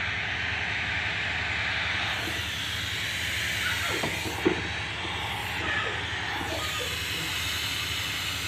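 Black & Decker steam mop giving off steam with a steady hiss as it is pushed across floor tiles, over a low steady hum. A single sharp click comes about halfway through.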